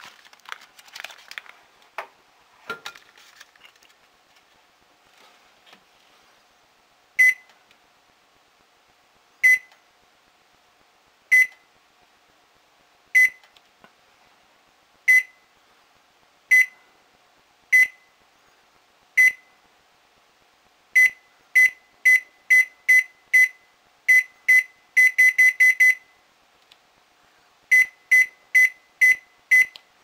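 Panasonic NE-E22A2 microwave's control panel beeping once for each button press as the heating time is keyed in: short, identical high beeps, a second or two apart at first, then in quicker runs, with a rapid flurry late on. Brief handling noises and a knock come first, as the packaged food is set on the glass turntable.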